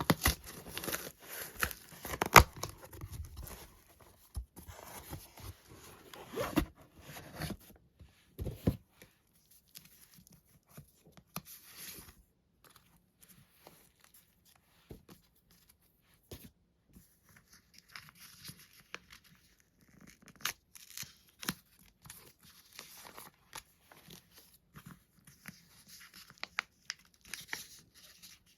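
Packaging on manga books being torn open and crinkled by hand. Dense crackling and tearing fills the first several seconds, then gives way to scattered small rustles and clicks.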